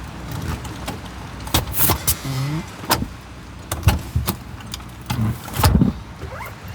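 A run of sharp knocks and clatters, the loudest near the end, with a short squeak about two and a half seconds in.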